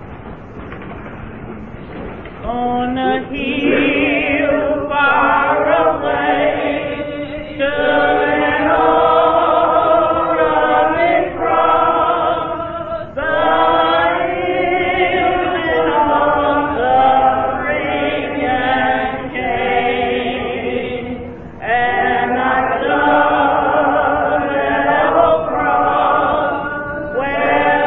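Gospel singing by a church choir: slow, long-held notes with vibrato, starting about two and a half seconds in.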